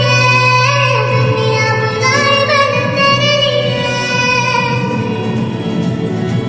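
Mobile ringtone music: a high sung melody that slides between notes, over a steady low bass note.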